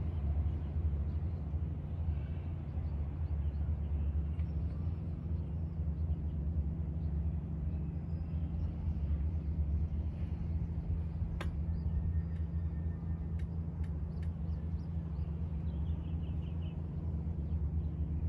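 Steady, unbroken low outdoor rumble, with a few faint, brief chirps and clicks above it.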